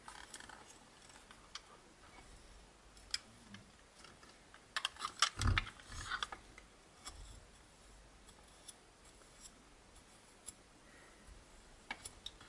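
Faint handling noise from the opened power supply as it is examined: scattered light clicks and taps, with a brief cluster of louder clicks and a dull knock about five to six seconds in.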